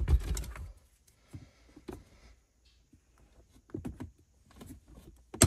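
Scattered light clicks and taps of a plastic trim pry tool working against a car's plastic center console trim, with one sharp loud click near the end.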